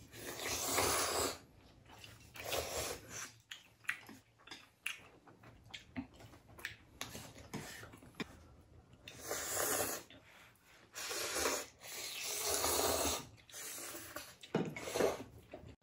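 Ramen noodles being slurped and chewed: several long airy slurps of about a second each, the loudest right at the start and in the second half, with small crunchy chewing clicks between them.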